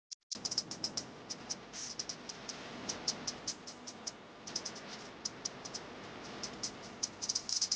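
Coloured pencil drawing on paper in quick, short strokes, several a second and unevenly spaced, over a steady rubbing hiss.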